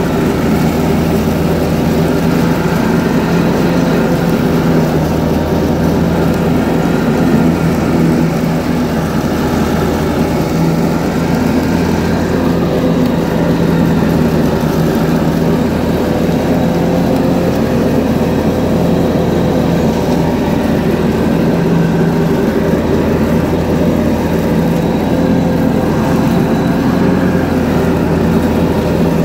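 John Deere 445 garden tractor running steadily under load, with the mower deck cutting wet, tall grass; an even, unbroken engine drone.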